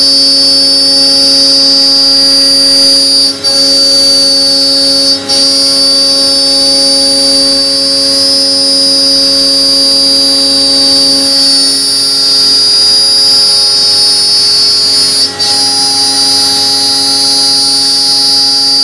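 CNC router spindle running at high speed while its bit cuts through sheet aluminium: a loud, steady high whine over lower steady hums, dipping briefly three times.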